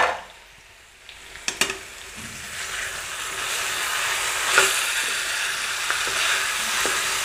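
Metal spatula stirring and scraping potato and cauliflower in a kadhai, with a few sharp taps against the pan early on, then a steady sizzle of the frying vegetables building from about two seconds in, with another knock of the spatula near the middle.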